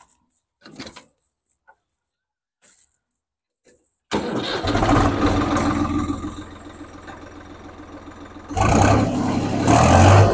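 Swaraj 855 FE tractor's diesel engine, naturally aspirated with a modified fuel injection pump, starting up abruptly about four seconds in after near quiet. It settles to a lower idle, then revs up hard again near the end.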